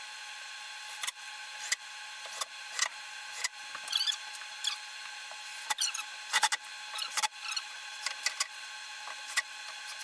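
Wooden frame parts and screws being handled and fitted together: irregular knocks and clicks of wood on wood, with a couple of short squeaks, over a faint steady hum.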